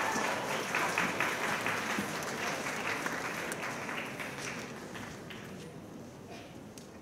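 Audience applauding, strongest at the start and dying away over the last few seconds.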